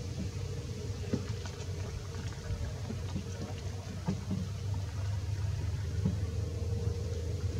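Volga hydrofoil boat's engine running at speed as the boat rides up on its foils, a steady low drone with a faint held higher tone. A few faint clicks sound over it.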